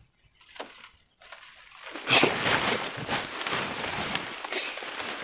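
Tall grass and leafy brush rustling and crackling as someone moves through it, with many small snaps. It starts about a second in and is loudest about two seconds in.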